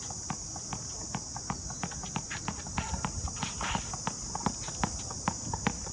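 Tennis ball tapped and bounced with a racket and on a hard court, a quick, irregular run of sharp taps, several a second, mixed with shoe steps. A steady high insect buzz runs underneath.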